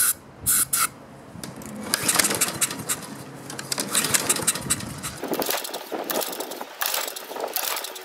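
A few short hisses of starting fluid sprayed into the intake of a Honda lawn mower engine, then the engine is cranked on the recoil starter with a rough mechanical clatter but does not fire even on starting fluid. That points away from fuel: the engine turns out to have no spark.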